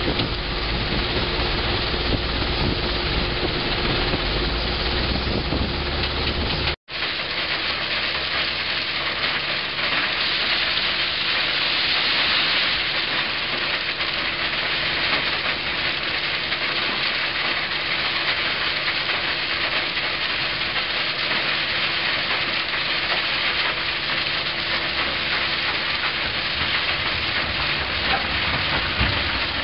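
Terex Finlay mobile screening plants working: a steady hiss and rattle of soil and stone passing over vibrating screens and conveyors, over a steady engine hum. The sound drops out for an instant about seven seconds in, then carries on with less low rumble.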